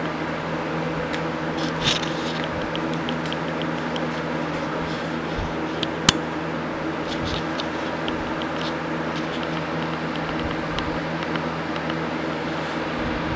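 Steady machine hum holding a constant pitch, with two runs of faint quick ticks and one sharp click about six seconds in.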